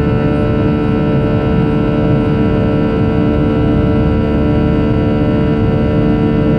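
Airliner cabin noise during the climb after takeoff: the jet engines and airflow make a steady, even rumble with a hum of several fixed tones on top.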